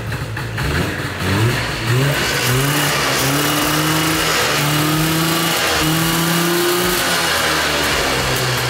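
The 1978 Arctic Cat snowcat's engine catching about a second in, revving up, then running fast and fairly steady with a slight wavering in pitch. It runs after a change to different spark plugs.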